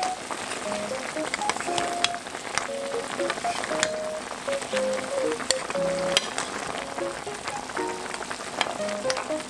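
Braised beef short ribs bubbling and sizzling in their soy seasoning in a wok as a spatula stirs them, with scattered clicks and scrapes of the spatula against the pan. A light background tune of short notes plays over it.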